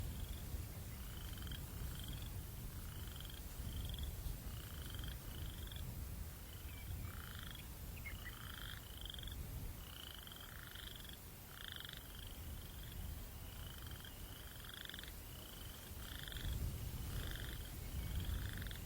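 Short chirping calls from a night creature, repeating about three times every two seconds at a steady pitch, over a low rumble of wind that swells near the end.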